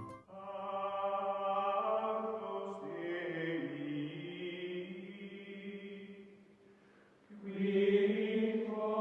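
Music of held, chant-like vocal tones that change pitch slowly and fade away about seven seconds in, followed by a louder held chord near the end.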